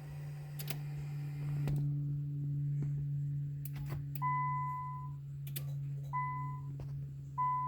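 Three electronic beeps, each a single steady tone under a second long, with a few faint clicks before them and a steady low hum underneath, as the Nissan Maxima's remote start is triggered ahead of cranking.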